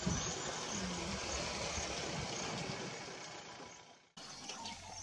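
A safari vehicle's engine idling, a steady low running noise. It fades, cuts out for an instant about four seconds in, then returns quieter.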